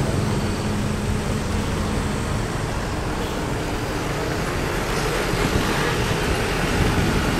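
Steady engine and road noise of a moving vehicle, heard from on board, with a low hum that stops about two seconds in.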